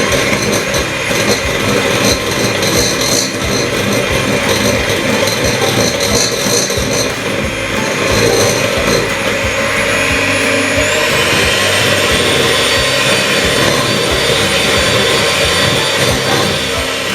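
Electric mixer whisking eggs and sugar, its motor running with a steady whine that steps up to a higher speed about two-thirds of the way through and winds down at the end, beating the mixture to a pale foam.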